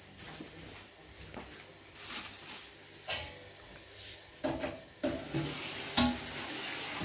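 Kitchen clatter: scattered knocks and clinks of dishes and utensils being handled, getting louder about four and a half seconds in, with a steady hiss starting about five seconds in.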